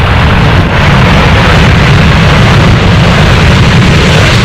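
Loud, steady noise of an airliner's jet engines, with a heavy low rumble.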